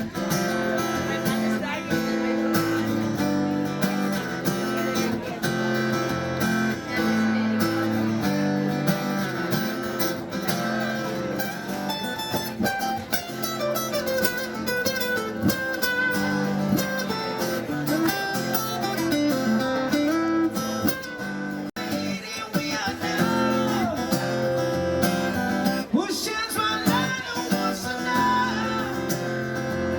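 Background music led by acoustic guitar, with a sung vocal line over it.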